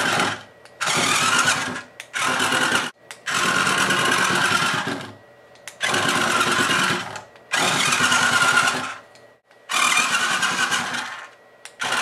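Small electric motor and gear train of a toy remote-control carriage whirring as it drives, in repeated runs of one to two seconds that stop and start about eight times as the remote's buttons are pressed and released.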